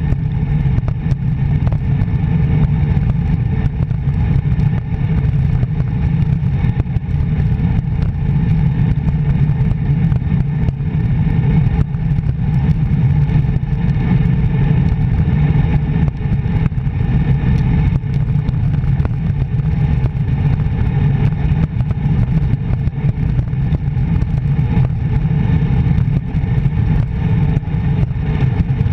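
Steady, loud rumble of wind buffeting a handlebar-mounted GoPro's microphone as a road bike descends fast on a mountain road.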